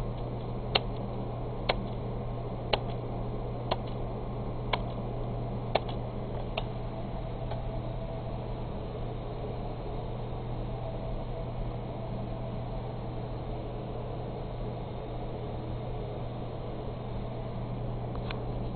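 Steady hum of running computer equipment, with a low drone and fan-like noise. Sharp clicks come about once a second for the first six or seven seconds, and one more near the end.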